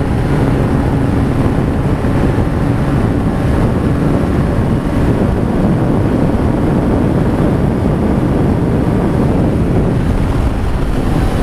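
Wind rushing over the microphone of a motorcycle at about 160 km/h, with the Honda CBR500R's parallel-twin engine running steadily underneath. The rush is a continuous loud noise with no breaks.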